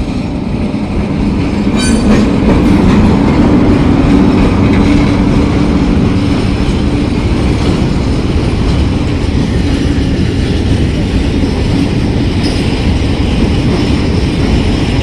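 Freight train of loaded phosphate hopper wagons rolling past close by behind a Hitachi E-1100-series electric locomotive: a steady, loud rumble of steel wheels on the rails with clicking over the rail joints. It is loudest a few seconds in, as the locomotive and first wagons pass.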